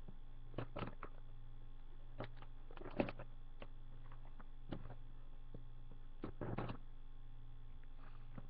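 Steady electrical hum under scattered rustles and clicks of a cardboard box and its packaging being handled and opened, with a sharp knock about three seconds in as the loudest sound.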